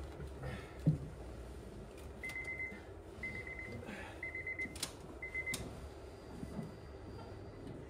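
Honda Prelude's dashboard warning chime beeping four times, about once a second, as the ignition is switched on ahead of a cold start. A faint high steady tone follows near the end, with a light knock about a second in.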